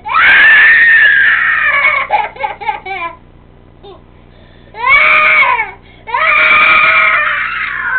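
Toddler girl crying loudly in three long wails with short sobbing catches between them, the second one brief. It is the crying of an overtired child protesting being made to take a nap.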